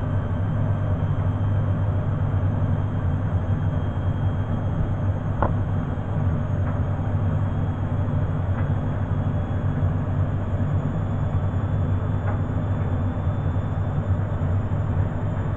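Beko front-loading washing machine spinning its drum near the end of the cycle: a steady low rumble with a faint high whine that rises slowly. A few light clicks come through, the sharpest about five seconds in.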